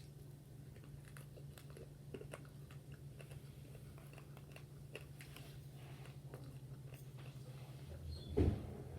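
Close-miked eating of KFC fried chicken: scattered small clicks and crunches of chewing and biting as meat is picked off the bones, over a steady low hum. A single louder low thump comes near the end.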